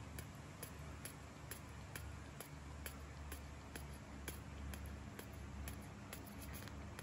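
Faint, regular ticking, about two sharp clicks a second, over a low steady hum.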